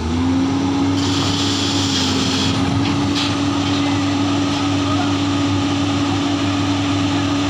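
Komatsu PC210 excavator's diesel engine revving up sharply and then holding at high revs under load as the machine climbs its tracks onto a lowbed trailer. A hiss sits over it from about a second in to halfway through.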